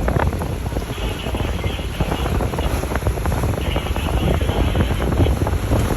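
Wind buffeting the microphone aboard a moving boat, over the steady low rumble of the boat and water.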